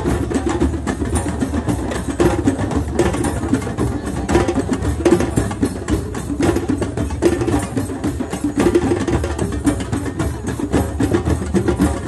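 Drums playing a fast, steady percussive rhythm without a break.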